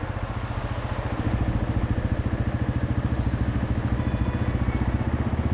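Yamaha TW225E's single-cylinder engine idling with a steady, even pulse.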